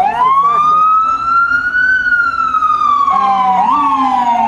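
Loud emergency vehicle siren on a slow wail, its pitch sliding up for about two seconds and then back down. About three seconds in, a second, lower siren tone joins, stepping up in pitch.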